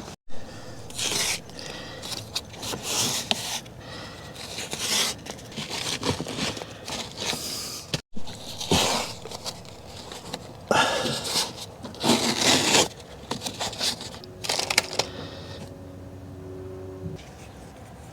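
Irregular scraping and brushing strokes, each about half a second to a second long: wood shavings being brushed and picked off foam carpet tile.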